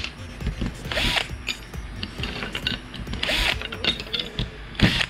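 Cordless drill-driver running in three short bursts on screws with fender washers set into small wooden strips, with clicks of screws and washers being handled between the bursts.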